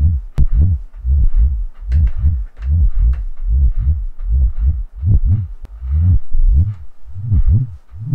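Police traffic radar's Doppler audio: a low tone that swells and glides up and down in pitch about twice a second as the radar is moved back and forth at about 2 miles an hour, its pitch following the speed of the motion.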